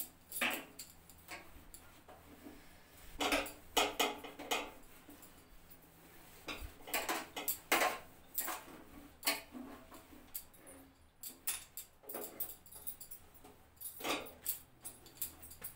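Damp cloth scrubbing a stainless-steel gas stove top, in irregular bouts of short scraping strokes with light metallic clinks.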